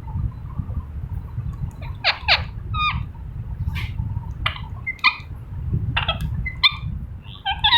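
Green ringneck parakeet giving a run of short, sharp calls with quick sweeping pitch, starting about two seconds in and coming in irregular clusters, over a low steady rumble.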